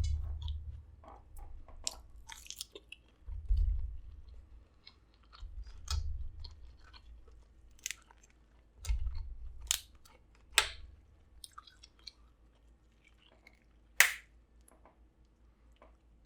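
Close-miked chewing and biting of food, with wet crackles and sharp clicks, dull low bumps a few times, and one sharp click near the end.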